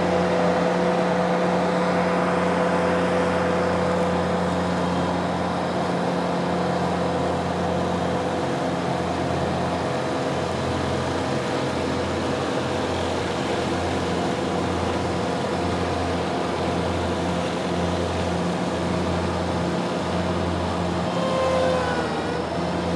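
Ventrac 4520 compact tractor running steadily with its Tough Cut mower deck working through cattails, with a brief shift in pitch near the end.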